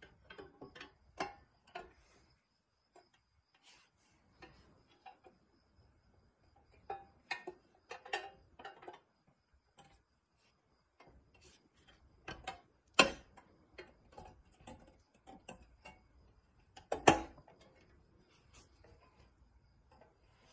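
Scattered clicks, taps and light scrapes of a pressed-steel toy truck's body panel being handled and fitted onto its chassis by hand, with two sharper clicks in the second half.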